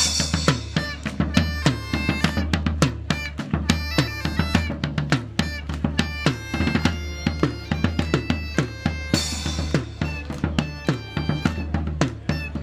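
Folk music: drums struck in a fast, busy rhythm over a steady low bagpipe drone, with a high melody line above.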